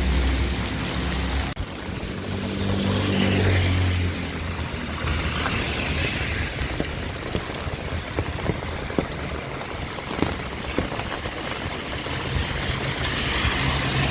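Heavy rain falling steadily, with scattered sharp drips spattering close by. A motor vehicle's engine hums in the first few seconds and again near the end.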